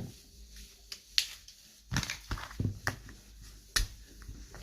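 Slippery slime being squeezed and poked by hand, making a series of irregular sharp clicks and squelches.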